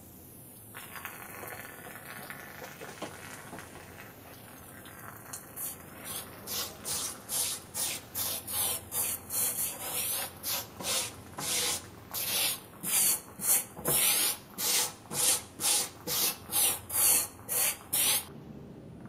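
A hand rubbing a finish into a black walnut board in regular back-and-forth strokes, about one and a half a second, which grow louder from about five seconds in.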